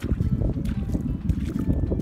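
Wind buffeting the microphone as an uneven low rumble, with music faintly underneath.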